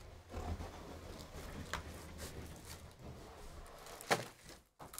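Handling of a cardboard trading-card box and its packs: soft rustling and small taps, with a sharper knock about four seconds in as the packs are set down on the table.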